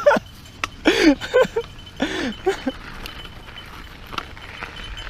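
Mountain bike rolling over a dirt trail, with a few short calls that fall in pitch in the first half.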